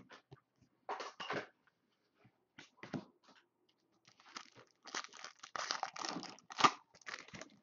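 Foil trading-card pack wrapper crinkled and torn open by hand. A few short crinkles come in the first half, then a longer run of tearing and crackling foil in the second half, loudest near the end.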